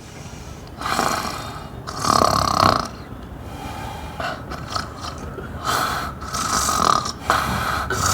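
A person snoring: two pairs of rasping snores, each about a second long, the second pair coming some five seconds after the first.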